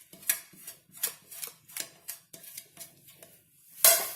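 A metal spoon tapping and scraping against a container, a run of short clicks about two or three a second, then one louder scrape near the end, as ground spice mix is added to flour.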